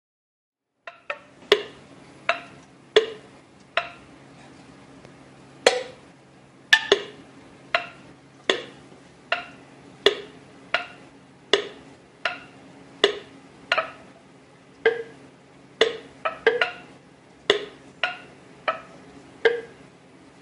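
Metal lids on hot jars of chicken bone broth in an opened pressure canner pinging again and again: sharp, ringing pings, irregular, one or two a second, starting about a second in. A low steady hum lies underneath.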